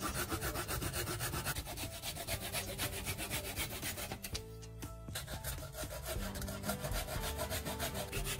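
Hand saw cutting through a thin strip of wood in quick back-and-forth strokes, with a short pause about halfway.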